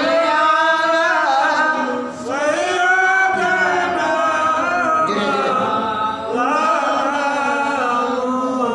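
A man's voice chanting without accompaniment in long, drawn-out melodic phrases, the melodic recitation style of an Islamic sermon, with two short pauses for breath.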